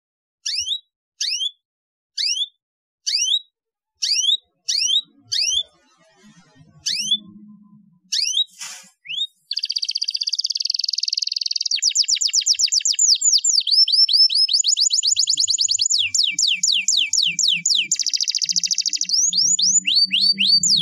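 Domestic canary: at first, single high whistled chirps that each slide downward, spaced about half a second to a second apart. About nine seconds in it breaks into continuous song of rapid trills and buzzy rolls.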